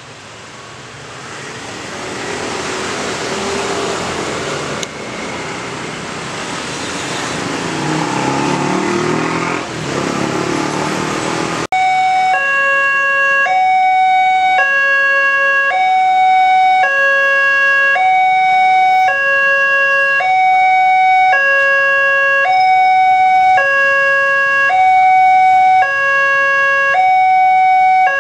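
Motorcycles and cars running across the crossing, then about twelve seconds in a railway level-crossing warning alarm starts: a loud electronic two-tone signal switching steadily between a higher and a lower note, each held for under a second. It signals that a train is approaching while the crossing barriers are lowered.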